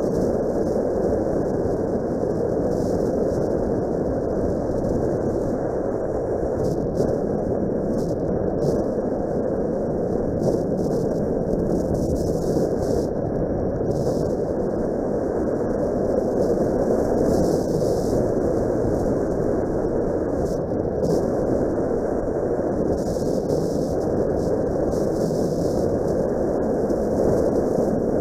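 Steady rush of wind and road noise mixed with the running of a Suzuki Grasstracker Big Boy, a 250 cc single-cylinder motorcycle, heard from on the bike as it rides along.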